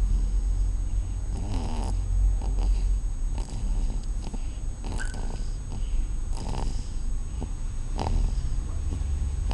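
Snoring in sleep: a run of short, irregular snores over the steady low rumble of a car's cabin.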